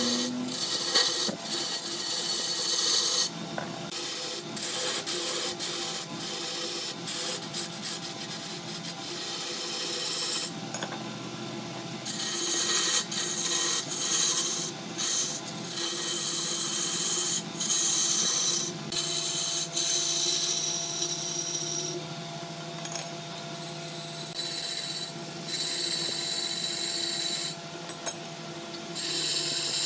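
Wood-turning tool cutting a large wooden blank spinning on a lathe: a rough, hissing scrape that breaks off briefly several times as the tool leaves the wood, over the steady hum of the lathe.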